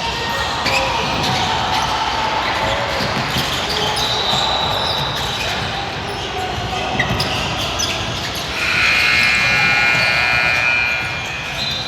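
Game noise in a large hall: a ball bouncing, scattered knocks and crowd noise, with a long steady tone lasting about two seconds near the end.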